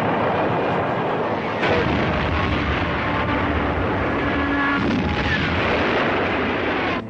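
Bombardment: continuous explosions and heavy rumble, with a louder blast about a second and a half in. The sound cuts off suddenly near the end.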